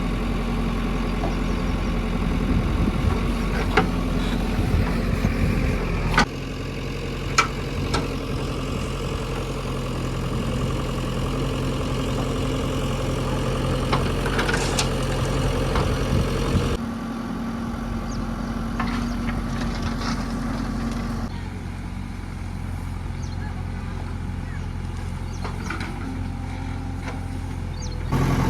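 Heavy diesel engine running steadily, with a few sharp clanks. The engine note shifts abruptly a few times.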